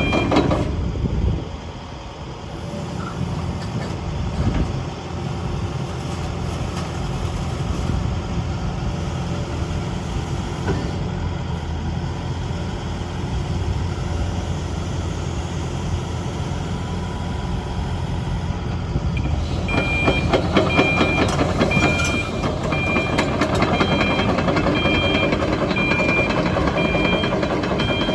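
A Sany SY135C excavator's Isuzu diesel engine runs steadily. About twenty seconds in it grows louder and a high beeping alarm starts, beeping at a steady, even pace; on an excavator this is the travel alarm, which sounds while the machine is tracking.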